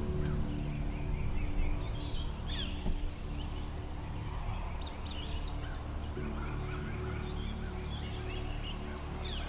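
Wild turkey gobbling amid a chorus of songbirds chirping and trilling, over a low steady drone.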